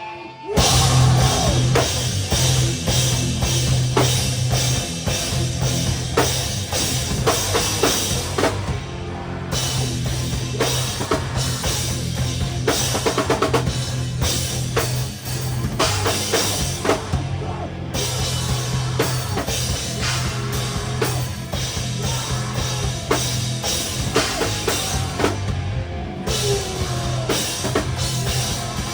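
Live heavy rock band playing loud, with the drum kit up front: kick drum, snare and cymbals over distorted guitars and bass. The song kicks in about half a second in, with short stops in the cymbals around 9, 18 and 26 seconds.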